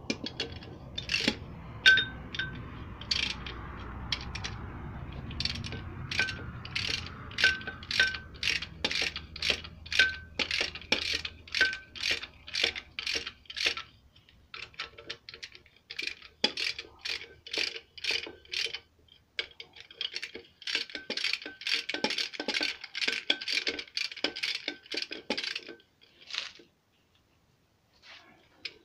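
Socket ratchet wrench clicking in runs of quick strokes as it works the flywheel bolts of a Peugeot 504 diesel engine. It pauses briefly about halfway through, clicks faster and denser later on, and stops a couple of seconds before the end.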